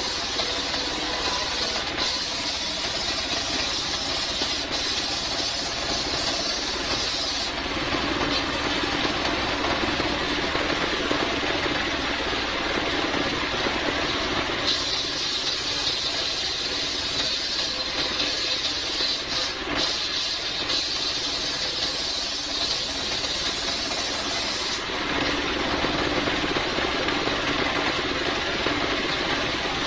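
Homemade circular saw (serkel) driven by a stationary engine, running steadily while its blade rips a coconut-palm (glugu) log; the cutting hiss changes a few times as the log is fed through.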